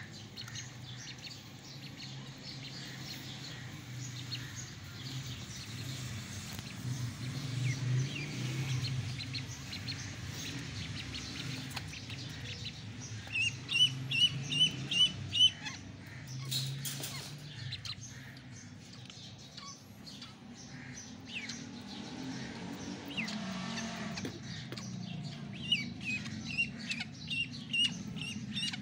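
Ducklings peeping: runs of short, high chirps at about three a second, one run near the middle and more near the end, over a low background hum.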